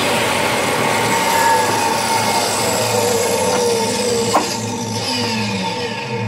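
An electric woodworking power tool running loudly and steadily, its motor whine sagging in pitch in places as it works wood. There is one sharp click about four seconds in.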